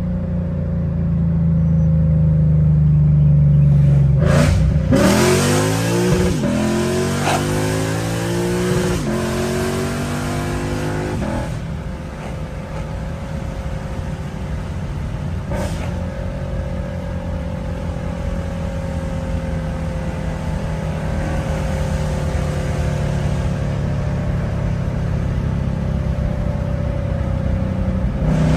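Lexus RC F's 5.0-litre V8, fitted with PPE unequal-length headers and a valved exhaust, accelerating hard. It climbs through several gears with short breaks at each upshift, then settles into a steady cruising note.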